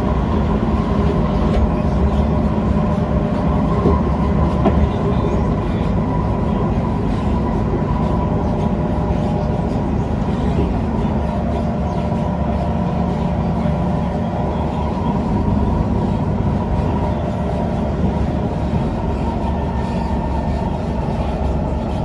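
Kawasaki C151 metro train heard from inside the car while cruising: a steady running rumble with a constant motor whine. In the first few seconds a train on the adjacent track passes close by, adding to the noise.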